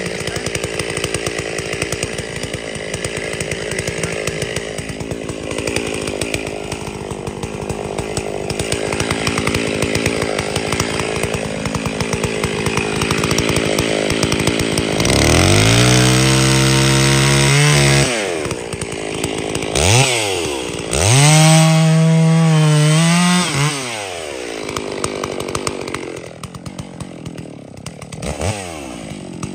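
Gasoline chainsaw running through a cut in a tree being felled. About halfway in the engine revs up to high speed and holds there for a couple of seconds, drops, then revs up and holds once more before falling back.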